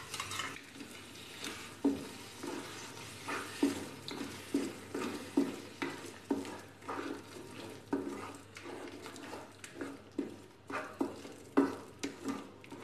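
Metal spoon scraping round a metal kadhai, stirring freshly added yogurt into fried spice masala in short, irregular strokes, with a faint sizzle from the hot pan underneath.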